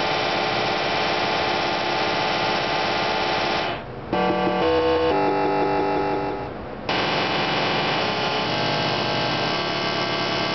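Williams High Speed pinball machine's synthesized game music and sound effects through its speaker: a dense, noisy electronic sound, changing about four seconds in to a few seconds of clear separate notes, then back to the dense sound.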